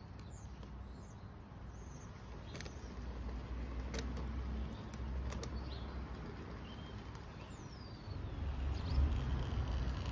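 Garden-scale model locomotive running slowly with a rake of empty slate wagons, heard as a low rumble with a few sharp clicks about two and a half, four and five and a half seconds in. A bird gives one short descending call a little after the middle.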